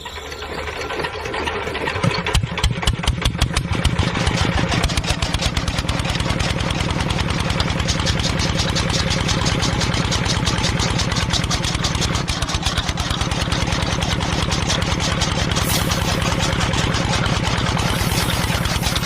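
An engine starting up and settling into a steady idle with a fast, even chugging. It rises over the first couple of seconds and is uneven for a moment before running steadily.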